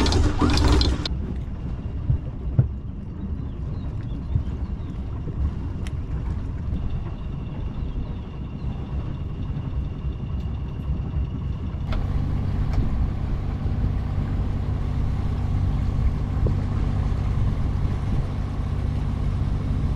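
Sailboat's inboard engine running steadily under way, a low drone, with a short loud burst right at the start. About twelve seconds in the drone turns into a steadier, more even hum.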